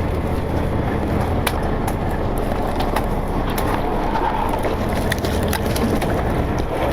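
Fishing boat's engine running at a steady idle, a low constant hum, with a few sharp clicks and knocks scattered through.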